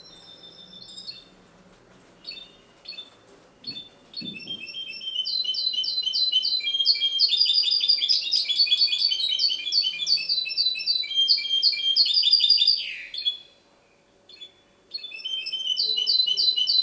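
Goldfinch × canary hybrid (a 'mixto' mule) singing: a few short, separate notes at first, then a long, fast run of rapid twittering and trilled phrases, a break of about a second and a half near the end, and the song starting again.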